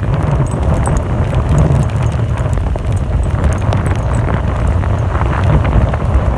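Strong storm wind buffeting the microphone as a loud, steady low rumble, with scattered sharp clicks and taps throughout.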